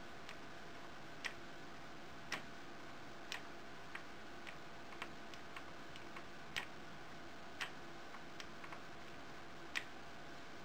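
Small pushbutton switches clicking faintly as they are pressed in turn to switch a homemade memristor on and off and test it with an LED; about a dozen short clicks at uneven spacing.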